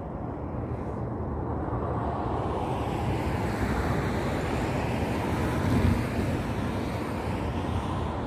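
A vehicle passing by, its noise swelling over a few seconds and easing off, over a steady low rumble of wind on the microphone.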